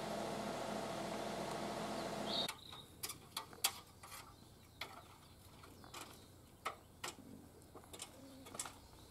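Excavator engine running steadily, stopping abruptly about two and a half seconds in. Then faint, scattered sharp knocks and clicks from work on the wooden concrete forms.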